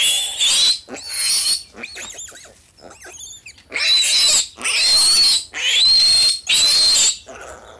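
Piglet screaming in long, high-pitched squeals while it is restrained and castrated. The squeals ease off briefly near the middle, then come as four long screams in a row.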